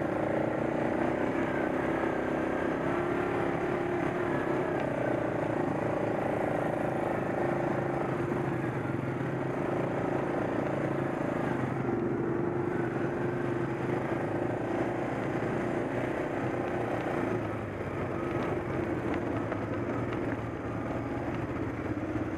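ATV engine running while riding over a rough trail, its engine note steady with small rises and falls in pitch as the throttle changes, briefly dropping in loudness about three-quarters of the way through.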